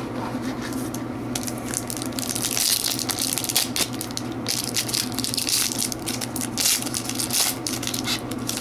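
Foil wrapper of a hockey card pack being crinkled and torn open by hand: an irregular crackling rustle that starts about a second in and runs on in quick bursts.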